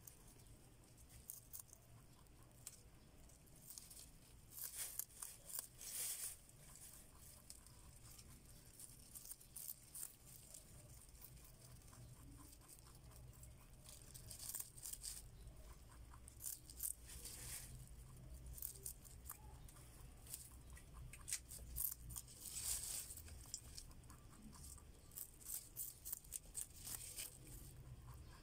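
A rabbit nibbling and chewing a green leafy stalk: faint, quick crunching clicks that come in clusters, with a low hum underneath.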